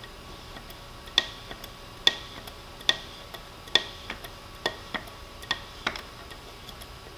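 Lever-action grease gun being pumped by hand, a sharp metallic click a little under once a second with fainter clicks between, as grease is forced through the hose to purge the line.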